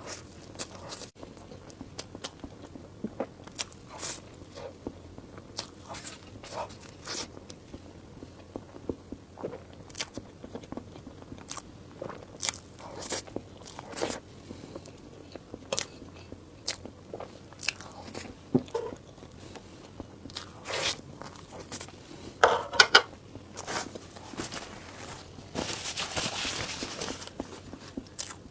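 A person eating: biting and chewing, with many short, sharp crunchy clicks, a louder cluster about two-thirds of the way through, and a hissing noise lasting about two seconds near the end.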